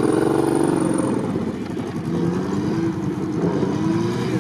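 A motor vehicle engine running steadily, its pitch wavering and rising a little now and then as the revs change.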